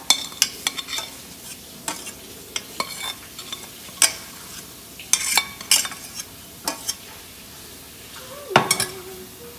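A metal spoon scraping and tapping cheese sauce out of a stainless steel saucepan into a pot of macaroni: irregular clinks and scrapes with a faint metallic ring. A louder knock comes near the end.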